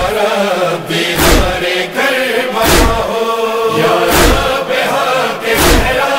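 An Urdu noha, a Shia mourning lament, chanted by voices. A deep thump sounds about every one and a half seconds, four times, keeping the beat.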